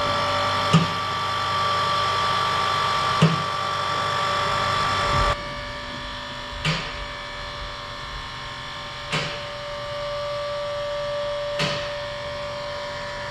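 Nissan 350Z's VQ V6 idling steadily through its standard exhaust with both tailpipes open, an even buzzing hum. A short click comes about every two and a half seconds, and the level drops slightly about five seconds in.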